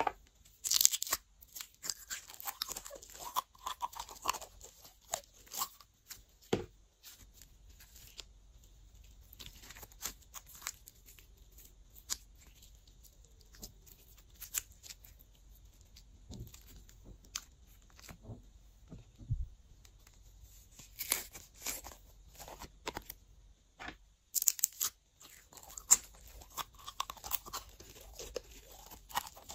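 Clear glitter slime squeezed out of its jar and stretched by hand: irregular sticky pops and crackles, with louder clusters about a second in and again near the end.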